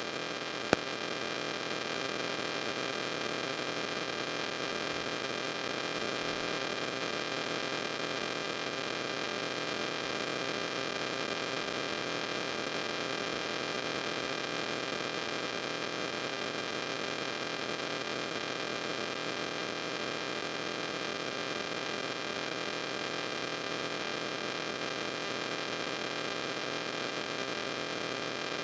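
Steady electrical hum and hiss with several constant whining tones, unchanging throughout, broken once by a single sharp click shortly after the start.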